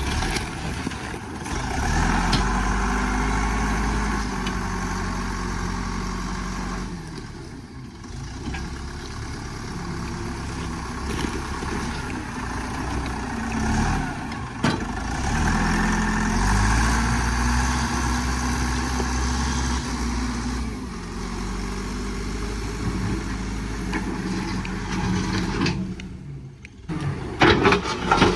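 Vehicle engine running, revving up twice: each time its pitch rises, holds for several seconds, then drops back. A few knocks and rattles come near the end.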